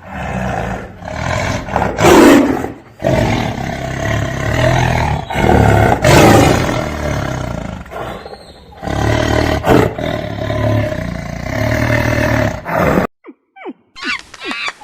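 A big cat roaring in a series of loud bouts. The roaring cuts off near the end, and a crow starts cawing in short calls.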